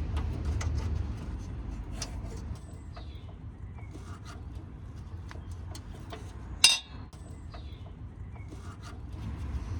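Irregular metallic clicks and clinks of a spanner working the rusty heat-shield nuts under a car, with one sharper clank about two-thirds of the way through. Faint bird chirps are heard now and then.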